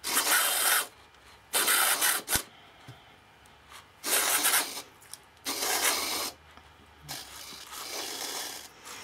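Embroidery thread drawn through a needle hole in a cardstock sheet while the card is handled: a series of short rasping rubs, four quick ones and a softer, longer one near the end, with a single small click between the second and third.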